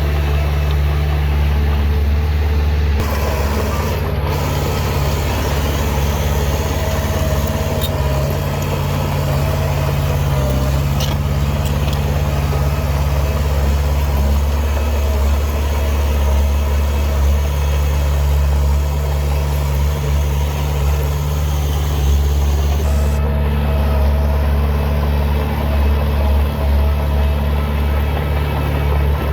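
Heavy earthmoving machine's diesel engine running steadily with a low drone. A brighter hiss joins about three seconds in and fades out after about twenty seconds.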